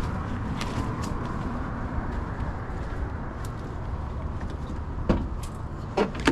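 Steady low rumble of vehicle noise, with two sharp knocks about five and six seconds in.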